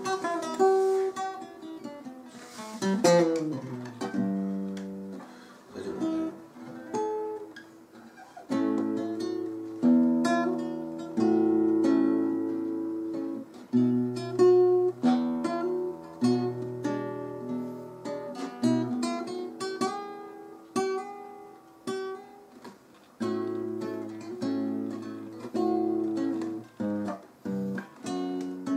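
Solo acoustic guitar played fingerstyle: a plucked melody over bass notes and chords, each note ringing and fading, with a quick run of notes about two to three seconds in.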